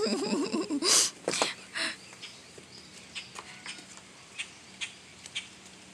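A chicken gives a wavering, quavering call for about the first second, then a few scattered light clicks and scuffs follow.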